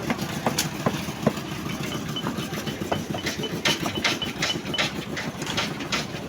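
An engine on a concrete-pouring site, most likely the concrete mixer's, running steadily at a low rumble. Irregular sharp clanks and knocks sound over it throughout.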